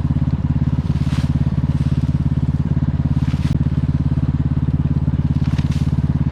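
Cub Cadet riding lawn mower engine running steadily at a constant speed, with a few faint brief swishes over it.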